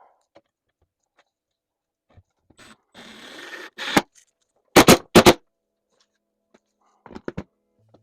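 Power driver driving a 2-inch wood screw through a mini split mounting plate into the wall: a short run about three seconds in, then three very loud short bursts about five seconds in and a few lighter ones near the end.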